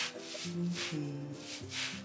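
Music: a gentle melody of held notes stepping from pitch to pitch, with a soft swish, like a shaker, recurring under a second apart.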